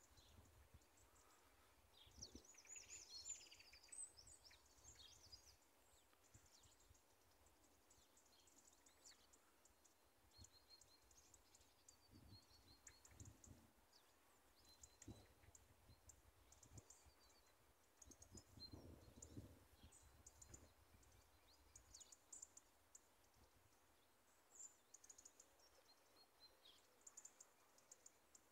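Near-silent outdoor ambience with small birds chirping faintly and often, busiest a couple of seconds in, and a few soft low rumbles.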